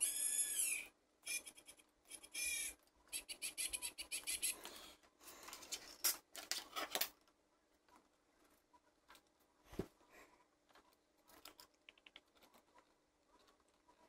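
Handling of a plastic toy board and its small parts: squeaky scraping and rubbing, then a quick run of clicks and scratches that ends about seven seconds in, followed by a few faint, scattered clicks as the board is turned over.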